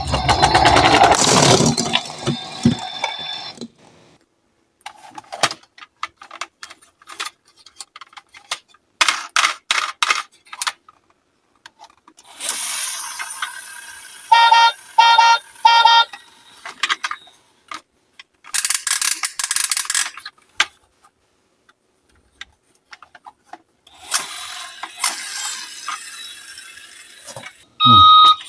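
Die-cast toy ambulance minicars rolling and clattering down a slope in several separate runs, with quiet gaps between them. About halfway through, a short pulsed electronic siren tone sounds three times.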